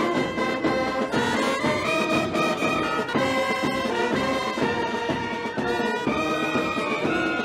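Brass music playing a melody of held notes that step from pitch to pitch.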